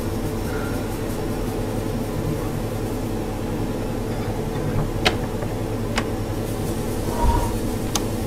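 Steady mechanical hum of a machine, with a sharp click about five seconds in, another a second later, a low thump shortly after, and a last click near the end.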